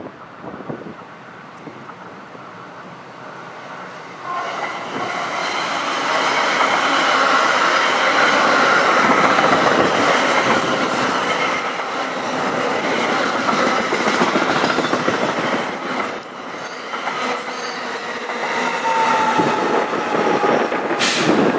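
A loud, continuous mechanical rush that swells about four seconds in and stays loud, with thin high squealing tones running through it.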